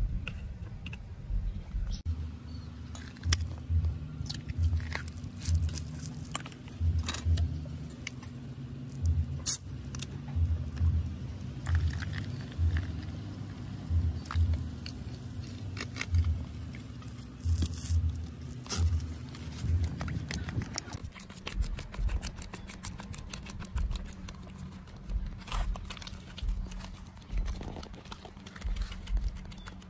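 Background music with a soft, regular low beat that changes about twenty seconds in, over scattered light clicks and crackles from liquid being mixed and stirred in a plastic basin.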